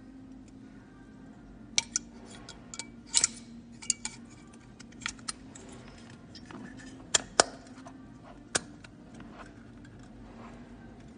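Handling noise from a recessed downlight fitting: scattered sharp clicks and clinks as its metal spring clips and glass-reflector lamp knock against the housing, the loudest a cluster about seven seconds in. A faint steady low hum runs underneath.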